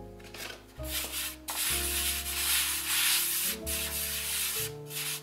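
Hand rubbing flour across the surface of a serving tray, a dry scrubbing hiss that builds about a second in and stops shortly before the end, over soft background music.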